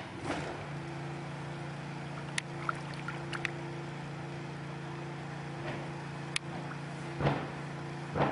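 A steady engine hum at one unchanging pitch sets in within the first second, with a few light clicks a couple of seconds in and two short thumps near the end.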